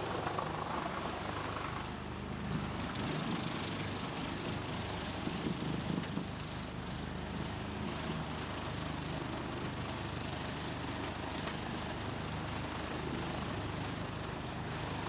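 Large engine-driven wood chipper running steadily, a continuous heavy machine drone.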